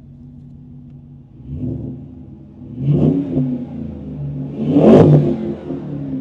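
A Land Rover Defender 110's 6.2-litre LT1 V8 idling, then revved three times, each rev rising and falling back, the last about five seconds in the loudest.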